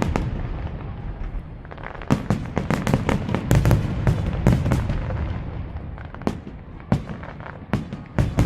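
Fireworks display shells bursting: rapid volleys of sharp bangs over a deep rumble, thinning out to a few single, spaced bangs near the end.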